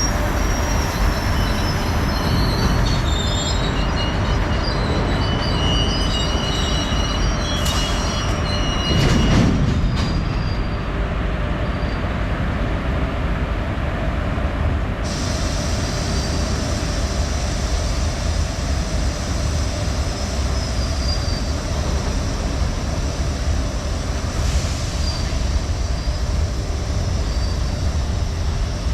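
Freight train rolling slowly past at close range: a steady rumble of wheels on rail, with high-pitched wheel squeal through the first ten seconds and a louder clunk about nine seconds in.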